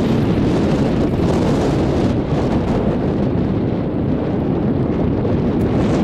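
Strong wind buffeting the microphone on an open chairlift: a loud, steady rush of wind noise.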